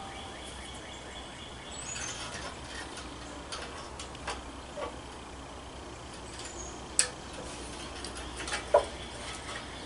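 Light, scattered clicks and taps of metal parts as a small-engine carburetor is fitted onto the engine and its throttle linkage and spring hooked up. The sharpest click comes about seven seconds in, with a duller knock shortly after.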